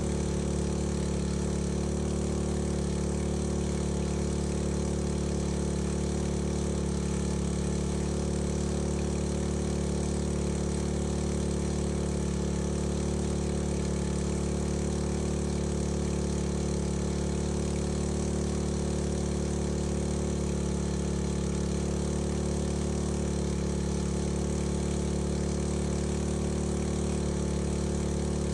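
Small petrol engine driving a fire pump, running steadily at one constant speed with an even, unchanging drone.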